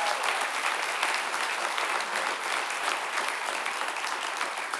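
Congregation applauding, the clapping gradually dying down.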